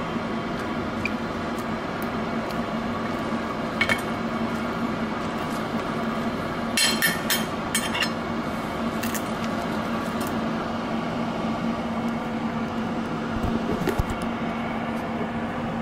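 A kitchen appliance hums steadily with a fan-like drone. Over it come a few light clinks of a utensil on a ceramic plate, with a quick cluster of them about seven seconds in.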